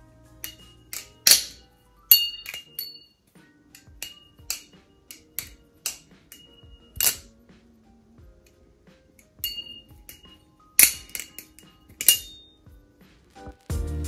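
A Dante Concept Symphony American Tanto balisong being flipped. The metal handles and latch strike the blade tang in irregular sharp clicks and clinks, some ringing briefly.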